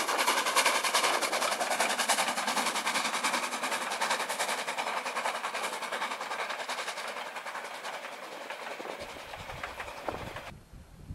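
Narrow-gauge steam locomotive of the Brocken railway passing with its coaches, working uphill: a rapid chuffing and clatter that slowly fades as the train moves away, then cuts off near the end.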